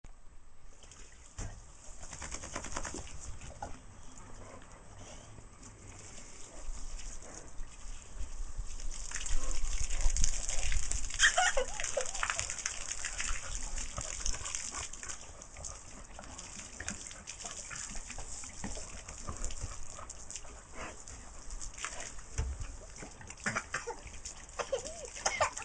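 Water from a garden hose spraying and splattering on wet paving, with a small child's short squeals now and then.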